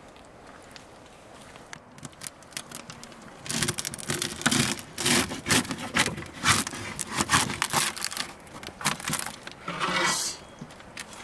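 A metal spatula scraping and prying the crisp rice crust off the bottom of a large metal cooking pot. From about three and a half seconds in there is a dense run of crackling, scraping and tearing, with a longer scrape near the end as the crust sheet comes loose.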